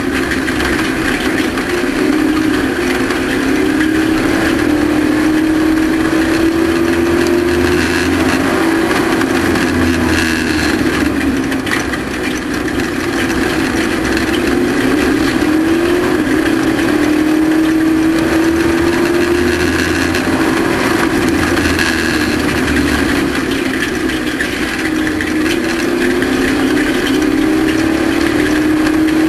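Race truck's engine running hard under load, its pitch climbing steadily for several seconds, then easing down and climbing again, about three times, as the truck accelerates down the straights and lifts for the turns.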